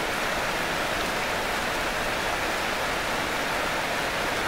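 Steady rain falling on a yard and the plants around it, an even, unbroken hiss.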